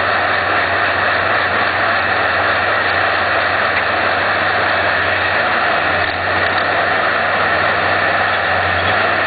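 Diesel engine of a Timbco tree shear (feller buncher) running steadily, an even noisy drone with a low hum underneath.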